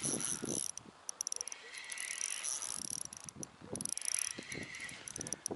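Spinning reel cranked in short spurts, its gears giving a high whirring whine, as a hooked fish is wound in; it stops and starts about four or five times.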